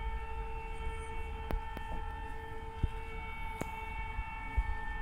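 Civil-defence siren sounding one unbroken steady tone: the alarm that marks 'W' Hour, the start of the Warsaw Uprising. A few sharp clicks and a low rumble of wind on the microphone lie under it.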